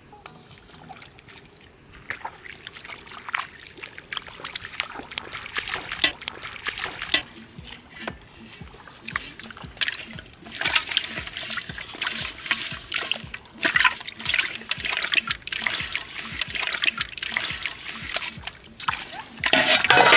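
Shallow water splashing and sloshing as a metal bowl is dipped and live fish are handled in a water-filled pot, in irregular bursts that get busier about two seconds in, with a loud splash near the end.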